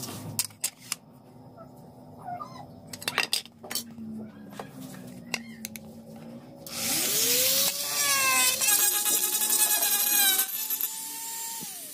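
Handheld mini grinder (rotary carving tool) spinning up just after midway, then cutting loudly for about four seconds, its pitch shifting under load. It then runs free with a steady whine that drops away near the end. Light clicks and taps of handling come before it starts.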